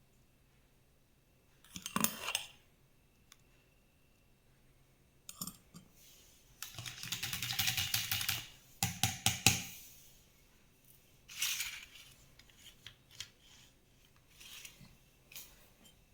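Kitchenware being handled: clinks and scrapes in several separate bursts, the longest a fast rattle about seven to eight seconds in, with more clatter around nine and eleven seconds and small ticks near the end.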